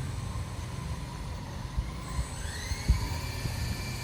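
Small RC helicopter's brushless electric motor and rotor spooling up: a whine that starts about two seconds in and rises steadily in pitch, over a low rumbling noise, with a single thump near the three-second mark.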